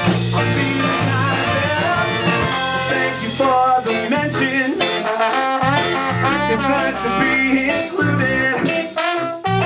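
Ska-punk band playing live: horn lines over a moving bass line, guitar and drums.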